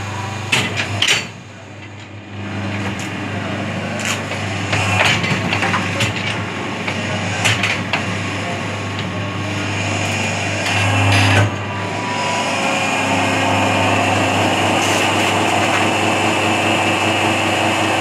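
Small automatic hydraulic plastic injection-moulding machine running through its cycle. The hydraulic unit hums steadily under several clunks and clicks as the mould moves. Over the last third a steady hiss sets in.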